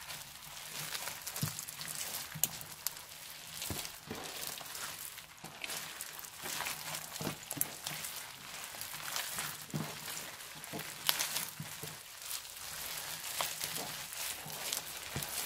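Hands squeezing and kneading a big mass of floam mixed with slime, the foam beads giving a dense, irregular stream of crunchy crackles and pops.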